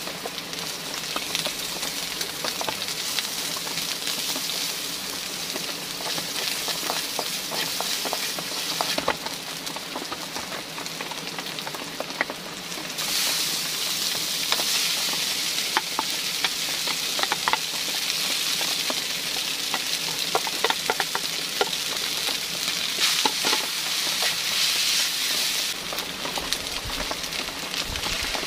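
Noodles sizzling in a metal pan over a wood fire, with a wooden utensil clicking and scraping against the pan as they are stirred and lifted. The sizzle grows louder for a long stretch in the middle, then eases near the end.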